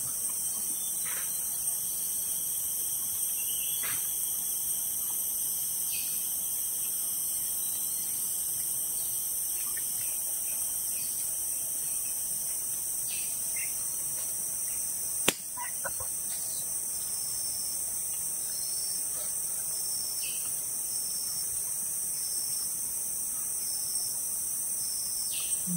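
Steady high-pitched drone of a forest insect chorus, with scattered short bird calls over it and one sharp click about fifteen seconds in.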